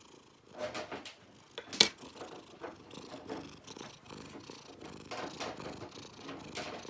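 Domestic cat purring in a rough, gurgling way while its claws are clipped, with one sharp snip of the nail clipper about two seconds in.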